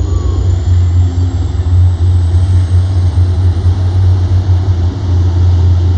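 MBTA F40PH-3C diesel locomotive running close by, a loud steady low drone without a break.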